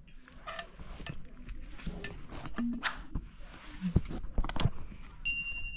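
Hiking boots scuffing and knocking on bare volcanic rock during a steep scramble, with several sharp knocks about three to four and a half seconds in. A short high ringing chime sounds near the end.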